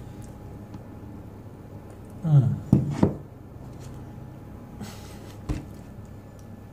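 A man eating a forkful of feta cheese with peanut butter. A little over two seconds in he makes a brief muffled voice sound with his mouth full, followed by two sharp clicks. A single sharp knock comes near the end.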